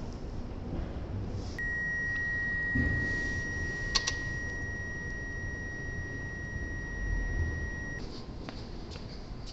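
A steady, high-pitched electronic beep tone held for about six seconds, starting and cutting off abruptly. A sharp click comes partway through.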